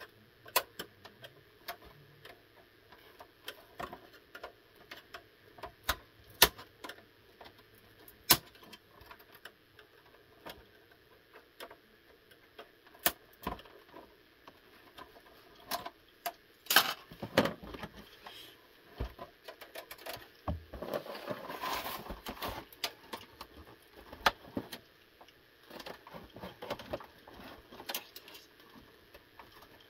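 Scattered sharp clicks and clatter of plastic parts as an Xbox 360 S console's casing is pried apart and handled, with a longer scraping rustle about two-thirds of the way through.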